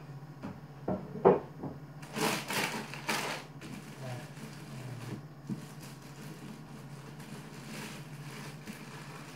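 Things being handled and taken out of a kitchen wall cupboard: a few sharp knocks in the first second and a half, the loudest a little over a second in, then a stretch of rustling and clatter, and one more knock midway. A steady low hum runs underneath.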